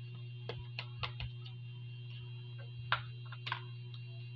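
A metal spoon clicks and scrapes against a plastic bowl in a few light taps. A sharper knock comes about three seconds in, as the plastic bowl is set down on a glass tabletop. A steady low hum runs underneath.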